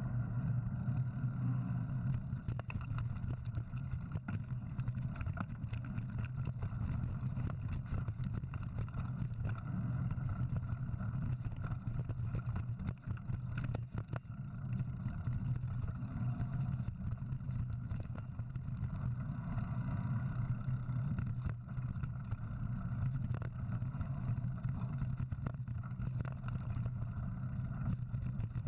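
Steady low rumble of a mountain bike riding over dirt and slickrock, picked up by a camera on the moving bike with wind on its microphone, with scattered short knocks and rattles from the tyres and bike over the rough ground.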